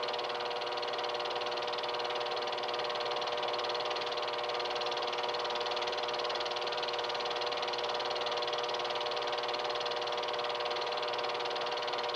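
Film projector running: a steady mechanical whir with a constant hum that stays the same throughout.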